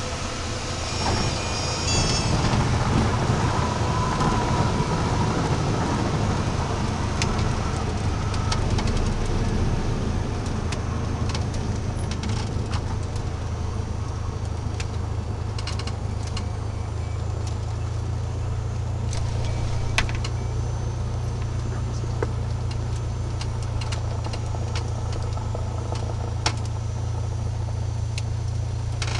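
Cessna 172's propeller engine at low power, heard from inside the cabin as the plane rolls out after landing and taxis: a steady low drone, a little louder over the first several seconds, with scattered short clicks.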